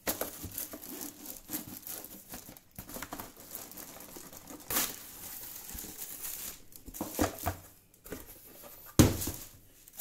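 Thin plastic wrapping crinkling and a cardboard box rustling as a coffee maker is lifted out of its packaging, with a thump near the end.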